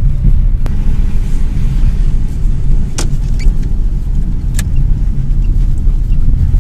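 Inside a Lada Priora car on the move: steady low engine and road rumble. A few sharp clicks or knocks sound over it, the loudest about three seconds in.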